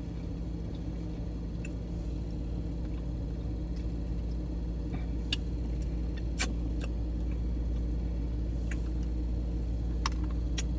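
Steady low hum of a car idling with the air conditioning running, with a few short sharp clicks and taps from eating crab legs.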